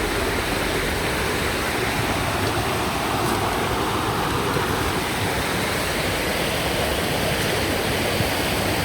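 Rainforest creek water cascading off rock: a steady, even rush of falling water.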